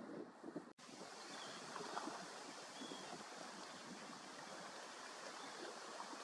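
Faint, steady wash of waves lapping against a rocky shoreline, cut off for an instant under a second in.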